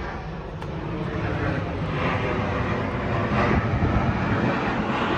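Aeroplane passing overhead on its approach to land, a steady rushing engine noise that grows louder over the first couple of seconds and then holds.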